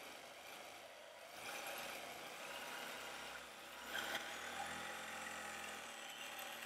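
Longarm quilting machine stitching, its motor and needle running with a steady hum as the machine is guided around a circle; two brief clicks about four seconds in.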